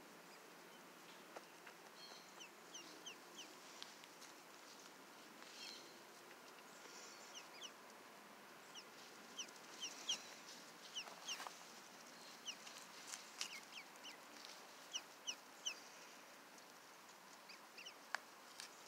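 Two-day-old Cayuga ducklings peeping: short, high peeps, single or in quick runs, coming most often in the middle.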